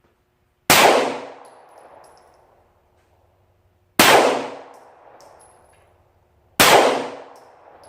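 Three 9mm pistol shots from a Glock 19 Gen4, each a sharp crack that rings out and fades over about a second. The second comes about three seconds after the first, the third about two and a half seconds after that.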